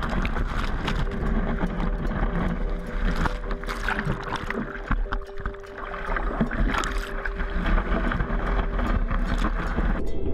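Ocean surf rushing and splashing right at a GoPro camera held in the waves, a churning wash broken by repeated splashes, easing briefly about halfway through.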